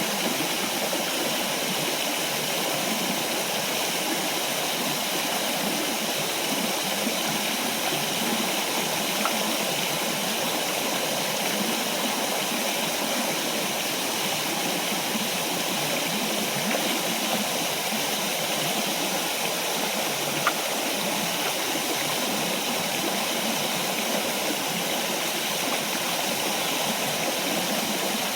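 Steady rush of water from a small forest waterfall and stream, with a few faint clicks now and then.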